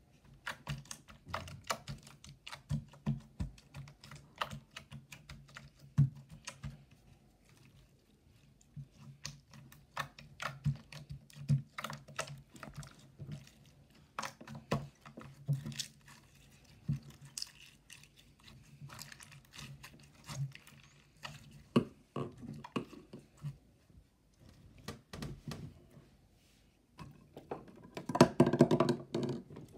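Clear teal slime being poked and pressed with fingertips on a wooden surface, giving rapid sticky clicks and small pops. Near the end it is squeezed in the hand, a louder, denser run of pops.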